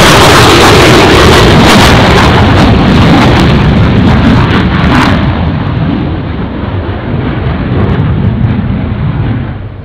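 F/A-18 Hornet's twin jet engines at takeoff power, a loud roar with crackle as the fighter lifts off and climbs away. About five seconds in the sound grows duller and fainter as the jet recedes.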